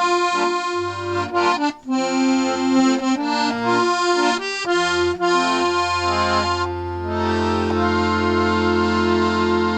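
A freshly restored 72-bass Stefanelli accordion, its reeds cleaned and retuned, playing a tune: a melody over alternating bass notes, which settles onto a long held final chord about seven seconds in.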